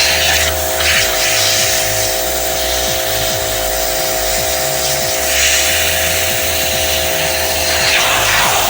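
Pressure washer running with a steady whine, its spray hissing against a 66cc motorized-bike engine case to wash off paint-stripper residue.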